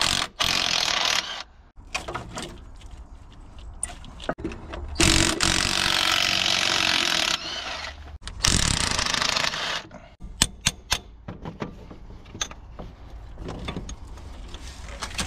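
Makita 18V cordless driver spinning a long socket extension in three bursts, undoing the starter motor bolts on a Land Rover 200Tdi engine. It is followed by scattered light metallic clicks and knocks as the loosened starter motor is handled.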